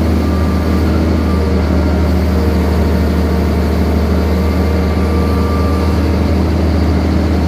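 Caterpillar 320 CL hydraulic excavator's diesel engine running steadily under load while digging mud, a deep low drone with a faint thin whine over it.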